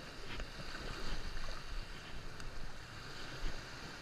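Wind buffeting the microphone in an uneven low rumble, over small surf washing up onto the sand.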